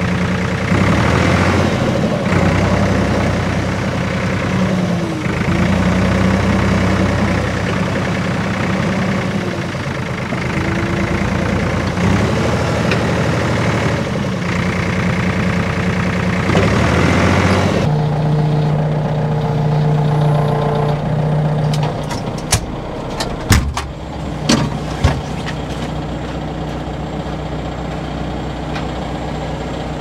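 Forklift engine running while driving, its note shifting up and down. About two thirds of the way through it changes abruptly to a steadier engine idle, with a few sharp knocks soon after.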